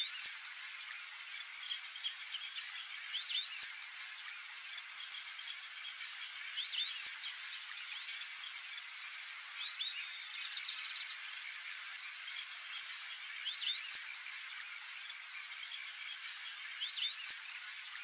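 White-faced whistling ducks giving short, high whistled calls in bursts every few seconds over a steady high hiss.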